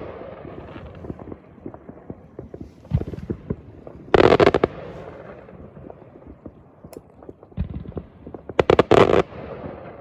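New Year fireworks going off: a steady patter of distant bangs and crackles, with two loud rapid volleys of close bangs, one about four seconds in and another near the end.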